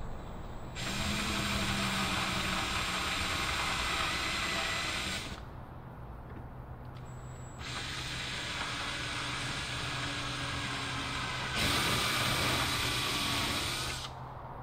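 Cordless drill running as it starts holes through a hinge into the wooden rudder, in two runs: one from about a second in lasting some four seconds, and a longer one from about eight seconds in that grows louder near its end.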